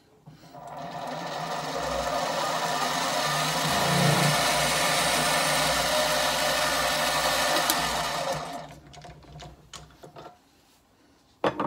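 Benchtop mini metal lathe running: the motor and gears spin up, run steadily for about six seconds, then wind down.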